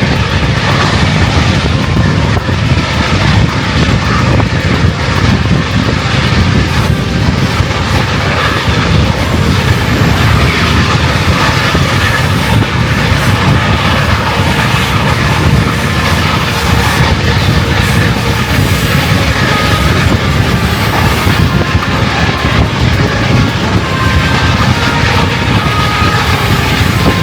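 Steady rumble and rush of a moving passenger train heard from on board, with a few faint short high tones in the second half.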